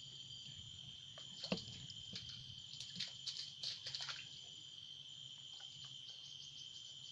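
Steady chorus of insects, a continuous high trill, with a few short clicks and knocks between about one and a half and four seconds in, the sharpest near the start of them.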